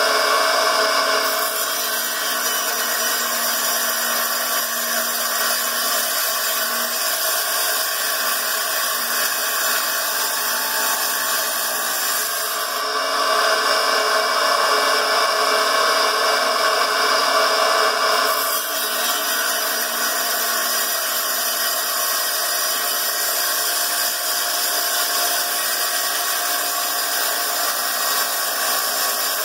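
Small 7-inch wet tile saw running steadily, its diamond blade cutting notches into subway tile. The sound gets louder and harsher for about five seconds near the middle.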